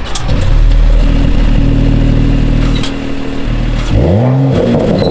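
Mercedes-AMG E53's 3.0-litre turbocharged inline-six exhaust, heard from behind the car at the quad tailpipes. The engine runs steadily, then about four seconds in it is blipped once, the revs rising quickly and falling back.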